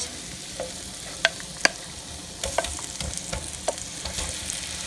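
Raw peeled shrimp sizzling as they go into a pan of hot melted butter, with a steady frying hiss. Several sharp clicks and knocks come through it as a wooden spoon scrapes the shrimp out of a glass bowl and stirs them in.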